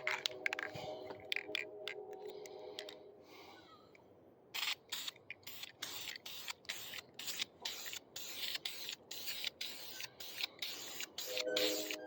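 Aerosol spray-paint can being shaken hard, its mixing ball rattling in quick strokes of about three a second, starting about four and a half seconds in. Faint background music is heard at the start and again near the end.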